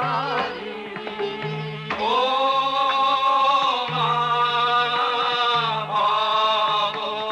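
Bengali devotional song: harmonium melody with drum accompaniment and singing, settling into long held notes about two seconds in.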